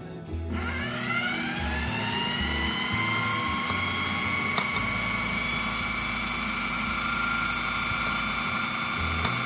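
Food processor motor starting up with a rising whine, then running at a steady high pitch as it grinds the falafel mixture.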